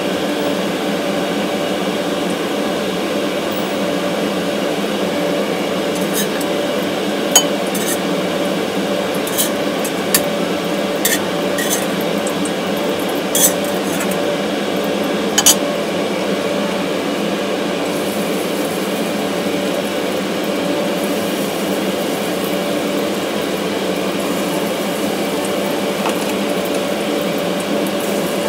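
Metal tongs clicking and clinking against a steel wok about eight times, between about 6 and 16 seconds in, as corn fritters are lifted out of the frying oil. A steady low hum runs underneath throughout.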